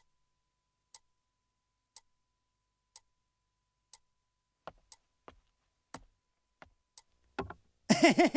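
Clock ticking about once a second in an otherwise silent room, with a few irregular softer knocks joining in from about halfway. A voice starts just before the end.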